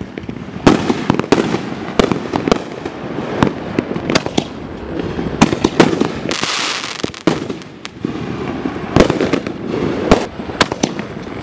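Dominator GOAT 5-inch reloadable aerial shells launching and bursting: an irregular run of sharp bangs and pops, with a hiss lasting about a second just past the middle.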